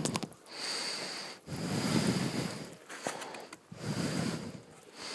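Homemade gold trommel turning, with gravel and water tumbling and sloshing in the drum in a rhythmic surge about once a second.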